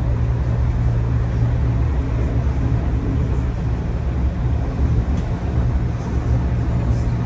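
DB Class 425 electric multiple unit running along the line, heard on board: a steady low rumble from the running gear and rails, with a few faint light ticks.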